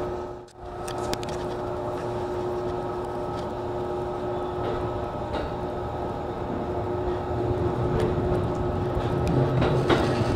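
JR East E233 series electric train running on the track, heard from the cab: a steady rumble with a constant hum. The sound drops out briefly about half a second in, then returns and grows louder toward the end.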